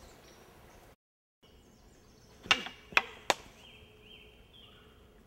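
Wooden practice swords striking each other in sparring: three sharp wooden clacks in quick succession, about two and a half seconds in.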